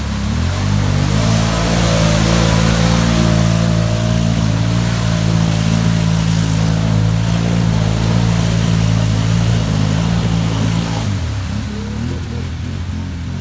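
ATV engine held at high, steady revs as the quad churns through a deep mudhole, with mud and water splashing around it. Near the end the revs drop and rise again.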